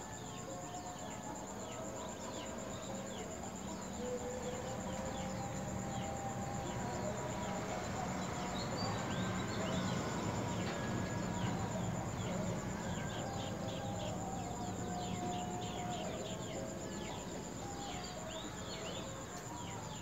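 Night insect chorus: crickets keep up a steady, high, pulsing trill, with many short chirps over it.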